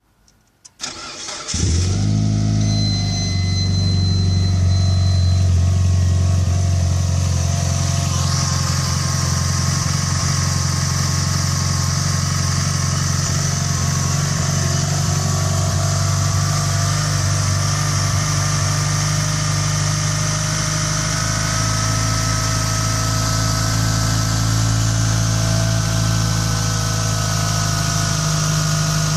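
Mitsubishi Lancer Evolution IV with a 415 bhp Evo VIII MR engine cranking briefly on the starter and catching about a second and a half in. It then idles steadily from a cold start.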